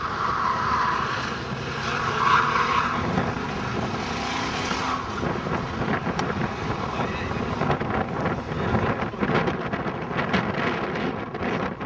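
Car engine running hard as the car is driven at speed through an autocross cone course.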